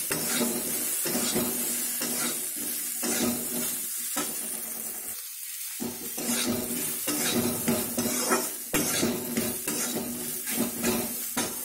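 Jujubes frying in mustard oil in a steel kadai, sizzling steadily over a low flame. They are stirred with repeated scrapes and clinks against the metal pan.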